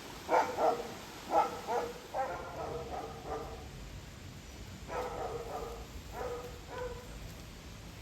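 A dog barking in short, pitched barks, in two bouts: a quick run in the first few seconds and a few more about five seconds in.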